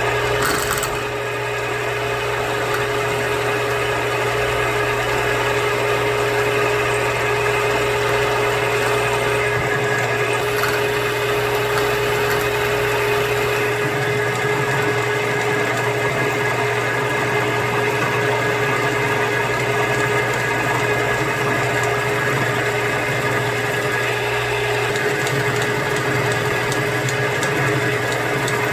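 Milling machine running steadily, a constant motor hum with a steady whine that holds its pitch throughout.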